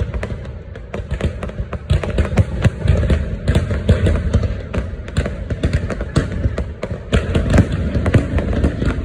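Fireworks going off in rapid succession: many overlapping bangs and crackles with no pause, over a deep rumble.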